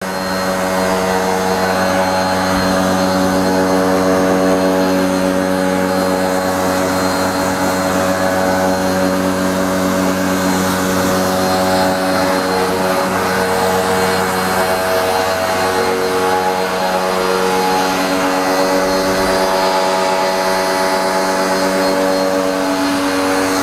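Motoyama high-pressure washer (rated to 135 bar) running under load: a steady electric motor-pump hum with a hiss of the water jet spraying. It starts suddenly and holds steady throughout.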